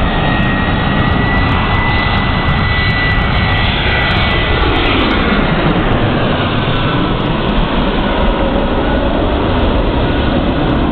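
Airbus A320 on landing approach passing low overhead, its jet engines making loud, steady noise. A high whine fades out about halfway through, and the sound sweeps down in pitch as the plane goes over.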